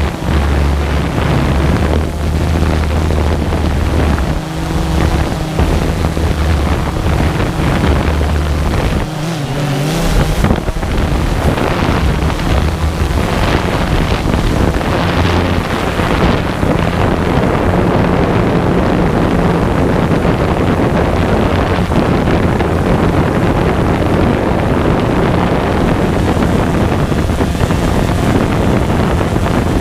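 DJI Phantom 2 quadcopter's propellers running in flight, a steady hum under heavy wind buffeting on the microphone. The hum is clearest in the first ten seconds or so, then the wind rumble covers it.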